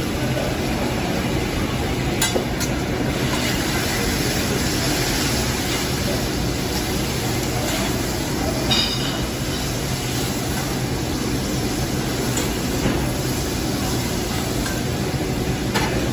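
Chicken sizzling on a hot teppanyaki griddle, a steady hiss over a low hum, with a metal spatula clinking and scraping against the steel a few times.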